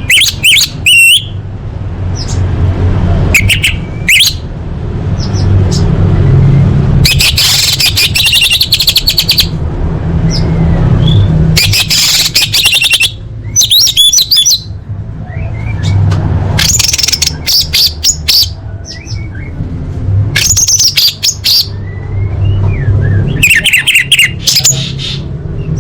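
Orange-headed thrush singing a varied song of loud, rapid, high phrases and trills, one after another with short gaps, over a steady low hum.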